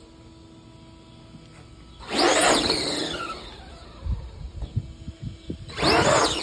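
Radio-controlled monster truck's motor whining in two bursts of acceleration, about two seconds in and again near the end, each rising then falling in pitch. A few light knocks come between the bursts.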